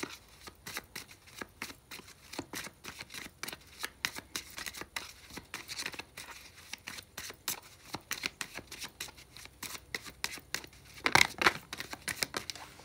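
A deck of tarot cards shuffled by hand: a quick, uneven run of card flicks and slaps, with a louder flurry about eleven seconds in.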